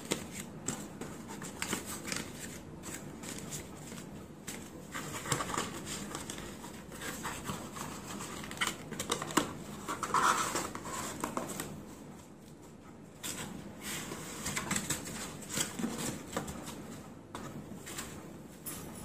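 Handmade cardstock magic-cube photo card being handled, folded open and set down: irregular rustling and scraping of paper and card with light taps.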